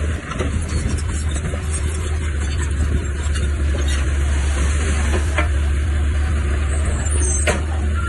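Heavy construction machinery's diesel engine running steadily with a deep drone, with scattered clanks and a brief high squeal about seven seconds in.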